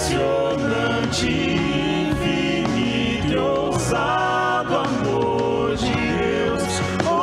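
Male vocal quartet singing a Portuguese worship song in harmony into handheld microphones, several voices holding and sliding between sustained notes.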